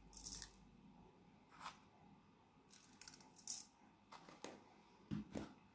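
Quiet scraping of a metal spoon scooping dry spice seasoning out of a bowl, in two short hissy bursts about three seconds apart, with a few light clinks and taps in between and near the end.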